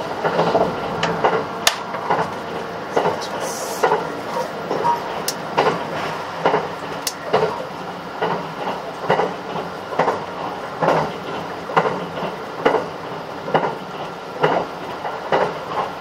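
Interior running noise of a JR West 681-series electric limited express train at speed. The steady rumble of the car is punctuated by wheels clacking over rail joints about once a second.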